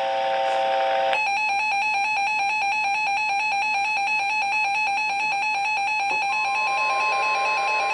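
Emergency alert attention tone of a NOAA Weather Radio Severe Thunderstorm Warning: a loud electronic alarm tone, rapidly pulsing and even, starts about a second in after a lower steady tone. About six seconds in, a second steady, slightly higher tone joins it.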